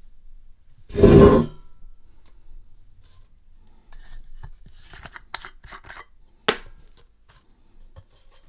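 Bench handling noises: a loud thump about a second in, then a run of sharp clicks and scrapes as a metal tin of paint stripper and a plastic cup are handled and the tin is opened, ending with a single sharp click.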